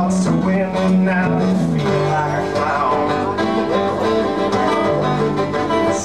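Live acoustic guitar music in a country/bluegrass style, with plucked notes over a moving run of low bass notes.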